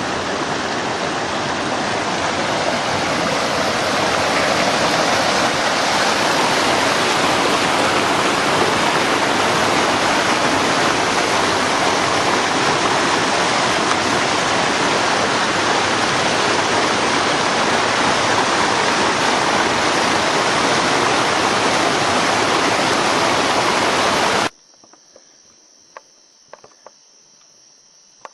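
Steady rushing water, loud and even, which cuts off suddenly about 24 seconds in, leaving a much quieter background with a few faint clicks.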